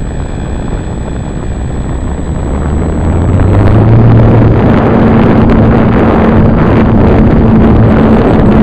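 RC airplane's motor and propeller, heard from a camera on board, throttling up for the takeoff roll: the sound grows louder and its tone rises slightly over the first four seconds, then holds steady at full power as the plane lifts off and climbs.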